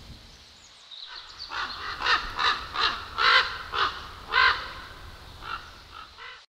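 A crow cawing: a run of about ten short calls in quick succession, some louder than others, starting about a second and a half in and tailing off near the end.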